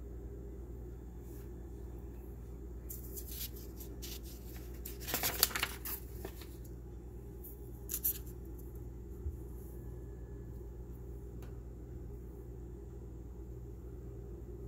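Rustling and clicking of handling over a steady low hum, in a cluster a few seconds in and once more briefly about eight seconds in.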